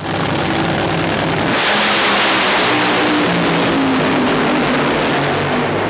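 Nitro drag-racing engine running very loud, with the sound growing harsher about a second and a half in.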